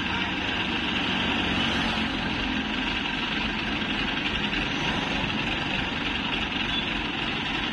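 Diesel engine of an ACE 12XW mobile crane idling steadily with an even low hum.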